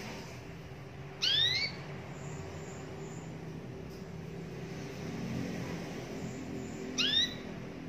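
Domestic canary giving two short rising whistled call notes, one about a second in and another near the end, over a steady low hum.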